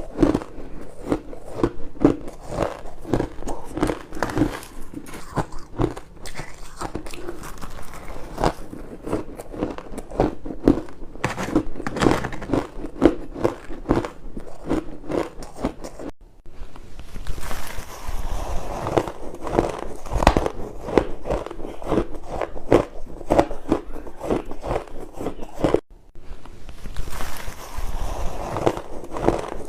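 Crushed and shaved ice being bitten and chewed close to the microphone: dense, rapid crunching that goes on throughout, broken by two short gaps where the recording is cut.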